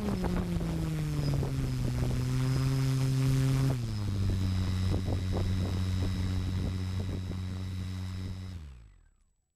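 Electric motor and propeller of an FPV aircraft on the ground under return-to-home, humming with scattered ticks. The hum falls in pitch as the throttle drops, steps lower about four seconds in, holds steady, then winds down and stops near the end.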